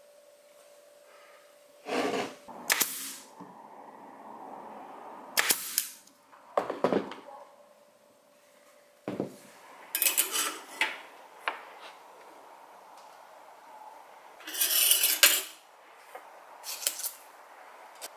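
Birch plywood parts of a lathe steady rest being handled and set down by hand: a series of irregular wooden knocks and clatters, with a longer, louder scraping rustle late on.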